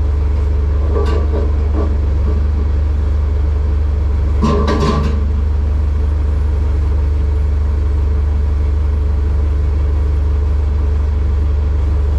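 Aircraft pushback tug's engine running with a steady low drone, with brief clicks and crackles about a second in and again about four and a half seconds in.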